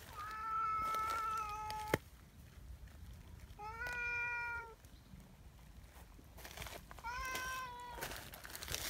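A domestic cat meowing three times: one long meow, then two shorter ones spaced a few seconds apart.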